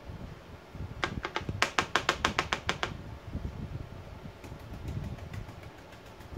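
Stiff paint brush dabbed repeatedly through a stencil against a painted cabinet door: a quick run of about a dozen sharp taps, about seven a second, then fainter, sparser taps.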